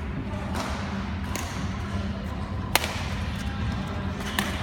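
Badminton rackets striking a shuttlecock in a rally: a few sharp, separate hits, the loudest about midway, over a steady low hum of the hall.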